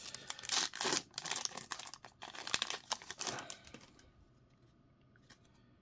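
A Topps baseball card pack's plastic wrapper being torn open and crinkled by hand, a crackly rustle that dies away about four seconds in. A few faint ticks follow.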